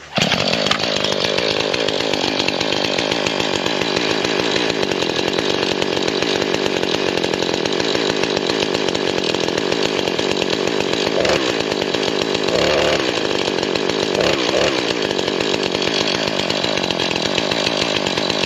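A brand-new Husqvarna 440 two-stroke gas chainsaw catches on a pull and runs, starting abruptly and then running steadily and loudly, with a few brief changes in its sound past the middle.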